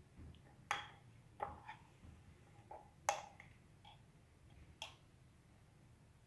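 Metal spoon clinking against a glass jar and a small dish while scooping out thick paste. There are about six light, separate clinks, with the sharpest about three seconds in.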